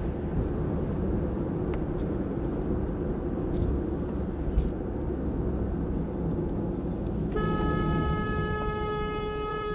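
Steady road and wind noise of a car at highway speed, heard from inside the car, with a brief knock about four and a half seconds in. About seven seconds in a vehicle horn sounds one long, steady blast of nearly three seconds and cuts off abruptly, as a truck draws up close alongside.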